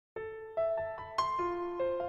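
Background music: soft piano-like keyboard notes played one at a time, a gentle melody that begins a moment in.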